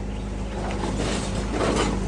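Hitachi Landy excavator's engine running steadily at a constant pitch.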